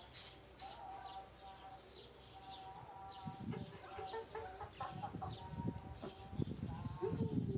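Chickens clucking and small birds chirping, with low rustling bumps in the second half and a short falling whine near the end.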